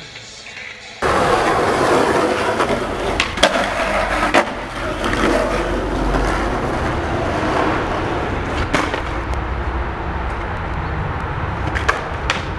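Skateboard wheels rolling on rough concrete in a steady rumble, starting about a second in, with a few sharp clacks of the board scattered through.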